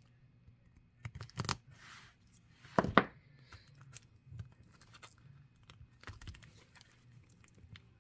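Packaging of a Topps baseball complete set being torn open by hand, in scattered short rips and crackles, the loudest about three seconds in.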